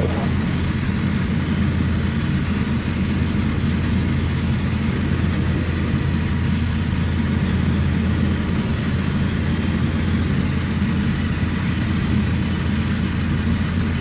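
Evektor SportStar light-sport aircraft's Rotax 912 four-cylinder engine and propeller in cruise flight, a steady, even drone with a constant hiss over it, heard from inside the cockpit.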